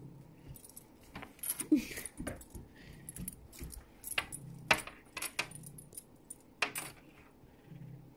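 Light metallic jingling and a series of sharp clicks in a bathtub as a tabby cat bats a small toy ball about.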